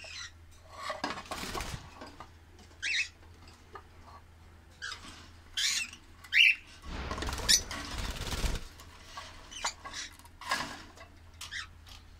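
Caged lovebirds and other small parrots giving scattered short, high chirps, with a rustle of wings or cage movement about seven to eight seconds in.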